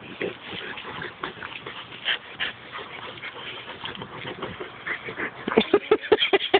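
A pit bull and a St. Bernard play-wrestling, with scattered scuffling and mouthing noises. About five and a half seconds in comes a quick run of short, loud whimpering vocal noises, several a second.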